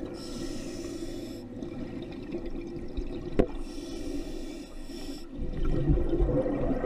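Scuba regulator breathing underwater: a hissing inhalation about every four seconds, followed by a rumbling burst of exhaled bubbles. A single sharp click about halfway through.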